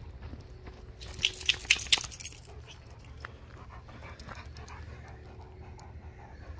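Doberman pinscher whining faintly, with a short burst of high, sharp jingling about a second in.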